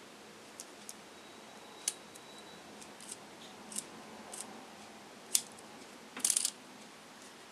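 Scattered small, sharp clicks and ticks as fingers handle an Olympus OM20 SLR's Zuiko 50 mm f/1.8 lens, at irregular spacing, with a quick cluster of clicks about six seconds in.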